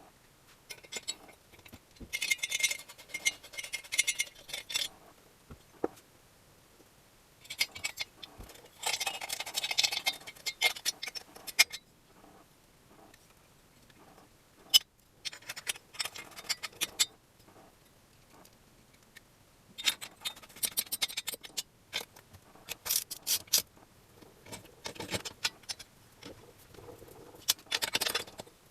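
Scraping and clicking of hand work on moped parts, in irregular bursts of one to three seconds with short quiet gaps between.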